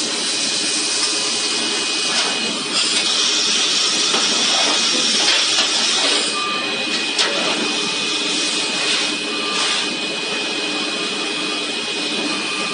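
CNC machine cutting stainless steel: a steady high whine over machine noise, with a hiss that swells and fades several times.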